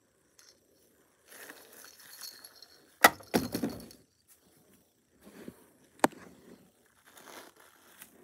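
Hard plastic baby toys being handled and shifted in a woven basket, rustling and clattering, with two sharp clacks about three seconds apart.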